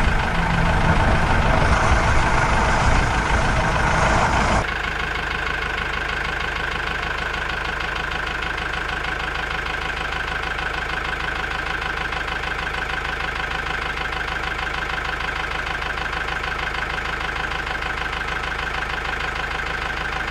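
Engine idling steadily, a sound effect laid over toy tractor footage. For the first four and a half seconds a louder, rougher noise plays, then it cuts off abruptly and the even idle runs on unchanged.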